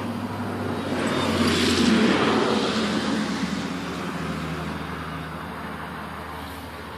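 A road vehicle driving past, its noise rising to a peak about two seconds in and then slowly fading, over a steady low engine hum.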